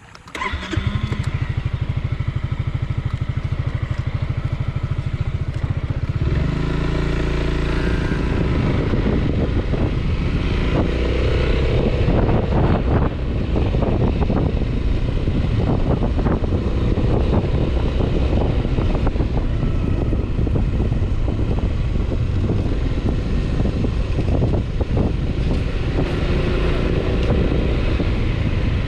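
Honda ADV 350 scooter's single-cylinder engine, which cuts in abruptly and idles steadily for about six seconds, then rises as the scooter pulls away and runs on under way.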